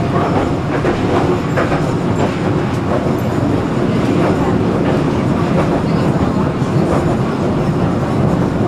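Tram running along the track, heard from on board: a steady running noise of wheels on rails and motor, with a few faint clicks.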